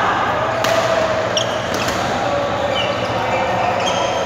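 Badminton rally in a large indoor hall: a racket strikes the shuttlecock once, sharply, about half a second in, and court shoes give several short squeaks on the floor, over a steady din of players' voices echoing in the hall.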